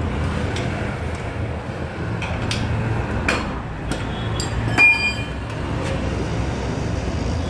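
Metal clinks and taps as the wheel nuts are spun off a car's front wheel with a hand wheel spanner, with one sharp ringing clink near the middle, over a steady low hum.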